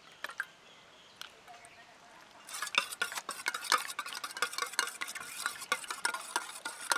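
Wire whisk beating eggs in a stainless-steel bowl: a fast, continuous clatter of metal tines against the bowl that starts about two and a half seconds in. Before it come a few faint taps as eggs are cracked into the bowl.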